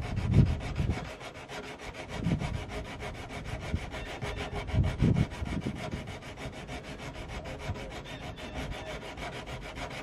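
Diamond hone rubbing back and forth over a flintlock rifle's front sight, smoothing out the file marks after the sight was filed down.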